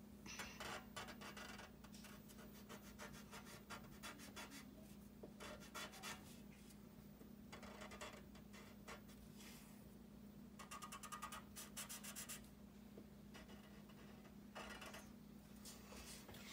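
Black felt-tip marker drawing on paper: faint scratching strokes in several short bursts of quick back-and-forth strokes.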